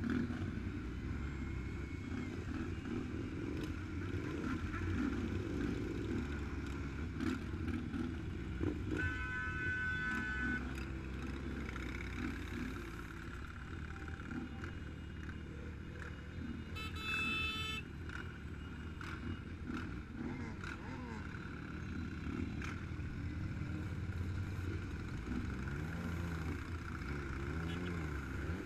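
Several motorcycle engines running at low speed in a slow-moving group, a steady low rumble; near the end an engine's pitch swings up and down as it is revved. Two brief high tones sound, about nine and seventeen seconds in.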